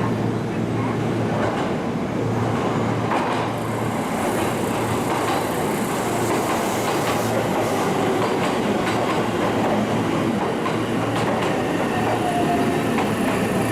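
Train running along the track, wheels clicking over rail joints, with a faint steady squeal near the end.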